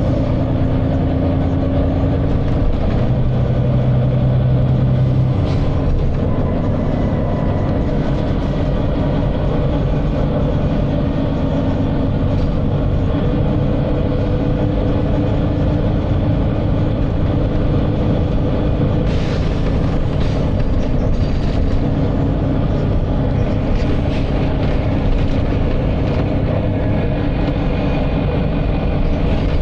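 Volvo B9TL double-decker bus running, its 9-litre six-cylinder diesel droning steadily. About two-thirds of the way in comes a brief hiss of air.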